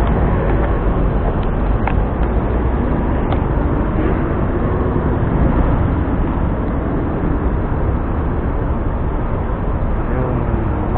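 Steady road traffic noise at a city intersection, heavy in low rumble.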